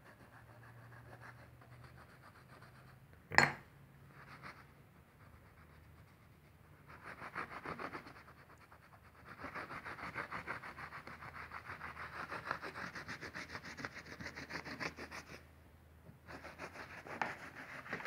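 Soft cloth rag rubbing back and forth over a grouted glass mosaic, wiping off grout haze in quick, rhythmic scrubbing strokes that come in spells. A single sharp click about three seconds in is the loudest sound.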